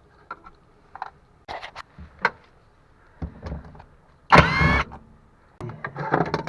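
Hand work on a car's fuel pump fitting under the rear seat: scattered clicks and knocks of plastic parts and tools as the retainer clip is taken off, with a loud half-second squeak about four seconds in and a short scraping rattle after it.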